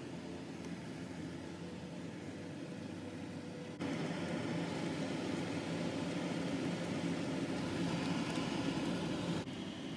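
Steady hum and hiss of a stove with a large pot of milk boiling on it for kheer. The noise steps up suddenly about four seconds in and drops back just before the end.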